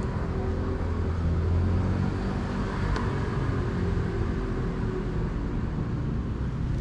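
Steady low rumble of outdoor background noise, like road traffic, with no distinct events.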